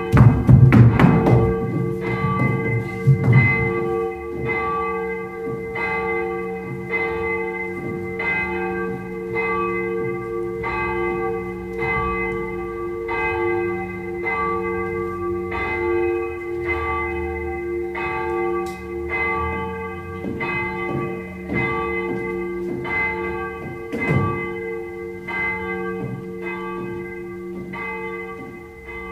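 A bell tolling about once a second, each stroke ringing on over a steady hum. A deep rumble sounds under the first few seconds.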